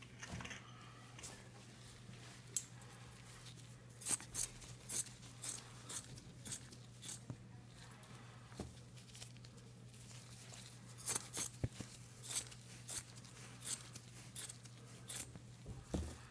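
Scissors snipping through a leg cast's soft padding: short sharp cuts about two a second, in two runs with a few seconds' pause between, over a low steady hum.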